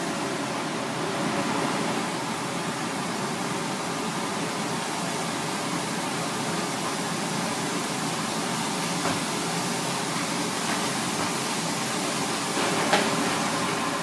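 Steady rushing background noise, even and unbroken, with a single sharp click near the end.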